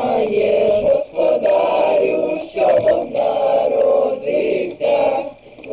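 A group of voices singing a Christmas carol in short phrases, with brief breaks between them.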